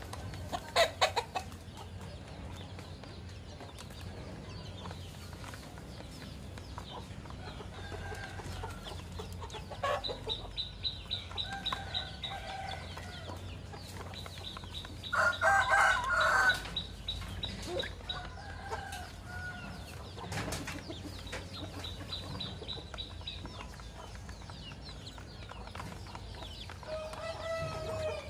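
Chickens clucking with short calls now and then; about halfway through, a rooster flaps its wings and crows once, the loudest sound.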